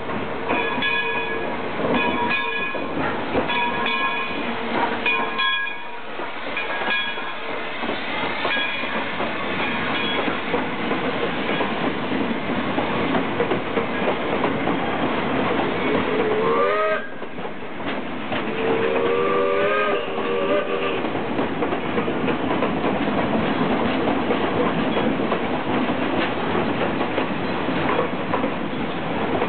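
Whistle of narrow-gauge Mikado steam locomotive No. 15, wearing No. 17's whistle, sounding a series of blasts. The train then runs past close by with steady rolling clatter, and a few brief wavering squeals come midway.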